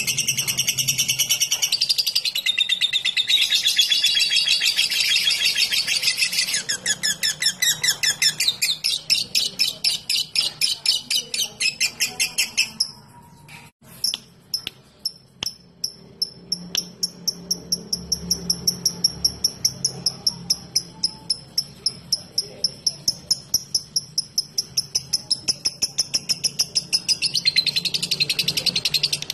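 Lovebird singing: a dense, continuous chatter, then long runs of rapid, evenly repeated sharp chirps at about five a second (the 'typing' call), with a brief pause about halfway. The dense chatter returns near the end.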